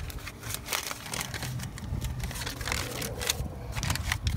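Rustling, scraping and small clicks of hands handling brake parts and pads, with a low rumble of handling noise.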